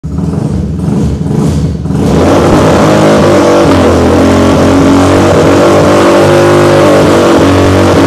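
Single-cylinder 250cc sports-bike engine revved through its slip-on exhaust, lower and uneven for the first two seconds, then held loudly at high revs.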